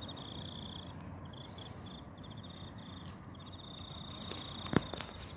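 Insect chirping in repeated rapid trills at a high, steady pitch, with one sharp click near the end.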